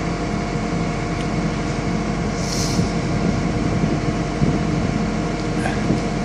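John Deere 310K EP backhoe's diesel engine running steadily at a raised idle while warming up after a cold start. A short hiss comes about two and a half seconds in.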